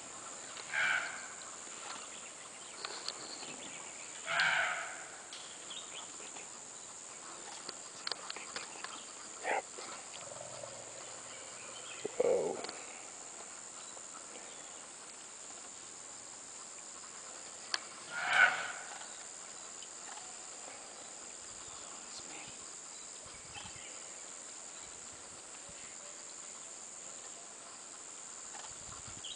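Jungle ambience: a steady high insect drone, with about five short animal calls scattered through. The loudest call comes about eighteen seconds in.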